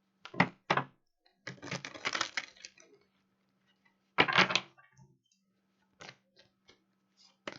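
Tarot cards being handled on a tabletop: sharp clicks and taps, with a short clattering flurry about a second and a half in and another burst about four seconds in.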